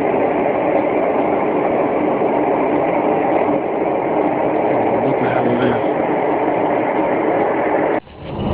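A loud, steady droning rumble of unexplained origin, the mysterious noise the recordist calls 'that noise'. It cuts off suddenly about eight seconds in, and another rumble starts to rise.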